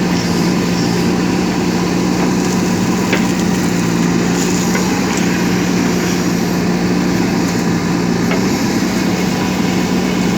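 JCB 3DX backhoe loader's diesel engine running at a steady speed, with a constant low hum.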